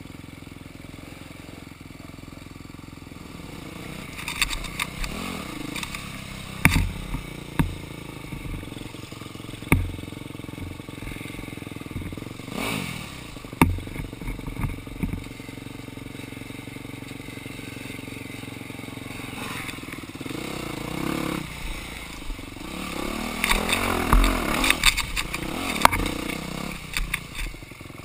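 Dirt bike engines running, with a brief rev about halfway through, and several sharp knocks and clatters as the bikes bump over logs and roots; the activity grows busier and louder near the end.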